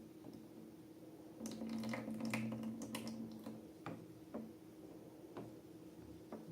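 Slime being squished and worked by hand: about a second in, a couple of seconds of dense sticky crackles over a low steady tone, then a few single wet clicks.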